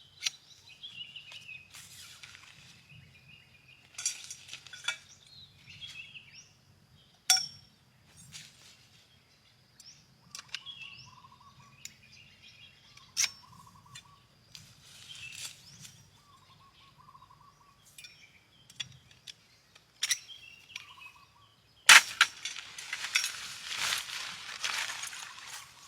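Jungle birds calling with short chirps and warbling notes, among scattered sharp clicks and knocks over a low steady hum. About twenty-two seconds in, a louder noise with no clear pitch takes over.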